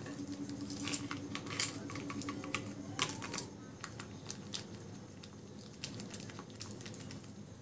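Polythene sheet crinkling under hands pressing two soft rolls of sweet dough together, with many light, quick clicks that come thickest in the first three seconds or so.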